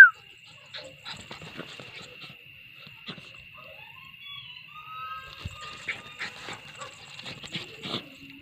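A small dog giving one sharp, loud yelp right at the start, then fainter short yips and whines while it runs about.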